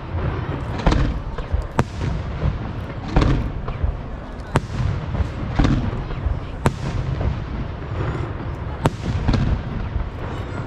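Fireworks display: aerial shells bursting in quick succession, sharp cracks about every second over a continuous low rumble of booms.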